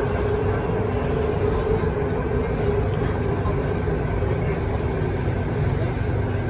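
Alstom Metropolis M5 metro train running between stations, heard from inside the car: a steady rumble of wheels on the track with a faint steady hum that fades out in the second half.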